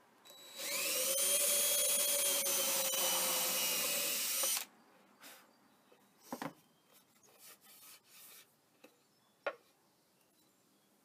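DeWalt cordless drill boring a hole into a hardwood clipboard panel, running for about four seconds: the motor whine rises as it spins up and cuts off sharply. Two short knocks follow.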